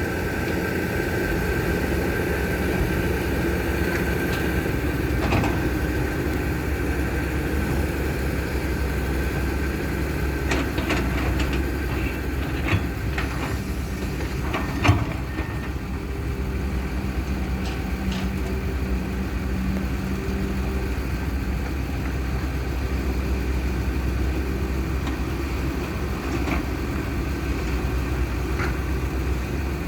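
Excavator's diesel engine running steadily, with a few brief sharp knocks, the loudest about halfway through.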